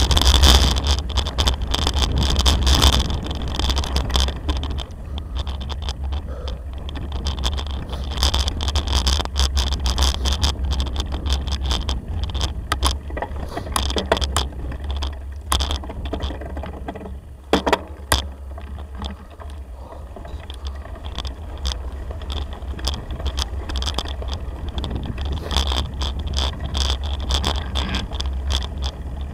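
Bicycle riding over a rutted dirt track: steady wind rumble on the microphone with frequent clicks and rattles from the bumps, louder in the first few seconds and again near the end.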